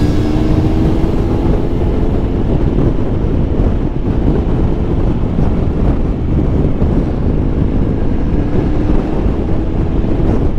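Triumph Tiger Explorer 1200's three-cylinder engine running at road speed under heavy wind rush on the microphone, its pitch rising a little in the first couple of seconds.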